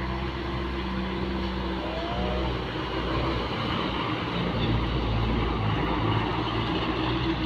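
Large diesel bus engine running steadily, growing a little louder through the middle of the clip.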